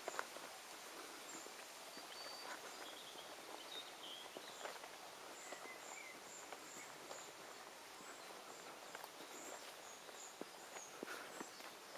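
Quiet countryside ambience: faint birdsong as scattered short high chirps over a steady soft hiss, with soft footsteps on a grass and dirt path.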